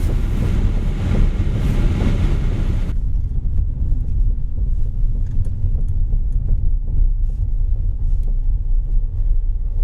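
Steady road and tyre rumble of a moving VAZ 2110, picked up by a camera mounted at the rear of the car, with wind hiss that falls away about three seconds in. Faint, irregular knocks come through after that: the knock from the rear brakes when the pedal is pressed.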